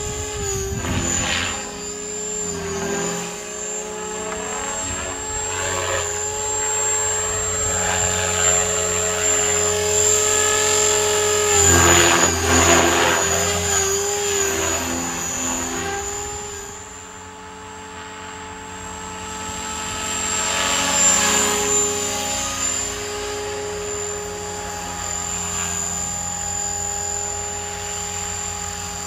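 Electric Align T-Rex 500 RC helicopter in aerobatic flight: a high-pitched motor and gear whine over rotor blade whoosh. It swells loudest as the helicopter passes close about twelve seconds in and again around twenty-one seconds, and eases off for a moment in between.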